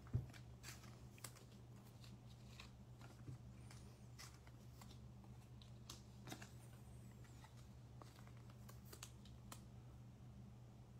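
Near silence with faint, scattered clicks and taps of trading cards being handled and laid down on a tabletop, over a steady low hum.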